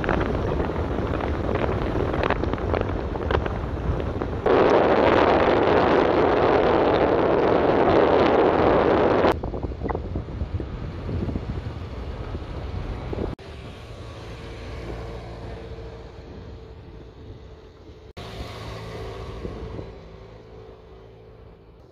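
Wind buffeting the microphone and road noise from a car driving, in loud stretches whose level jumps up and down abruptly several times. The loudest stretch comes in the first half, and a faint steady hum sits under the quieter later part.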